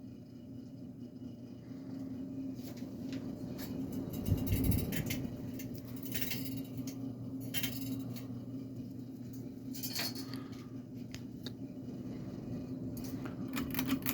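SMC Twister UB-30 ceiling fan running with a steady motor hum, with irregular light clinking and rattling over it and a dull thump about four and a half seconds in.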